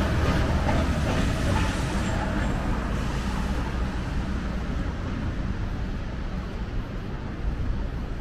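City street traffic on rain-wet pavement: vehicles running and tyres hissing as they pass, the hiss fading after about three seconds.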